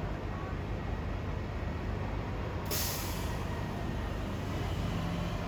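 A transit bus's engine running, with a sudden sharp hiss of air from its air brakes a little under three seconds in that trails off over about a second.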